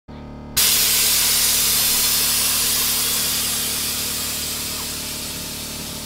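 Air suspension letting its air out in a loud hiss that starts suddenly about half a second in and slowly fades, over a steady low hum.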